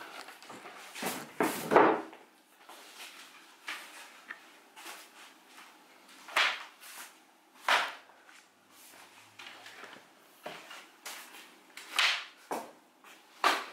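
A string of separate knocks and clunks, about half a dozen spread out, the sound of things being handled and set down in a small workshop.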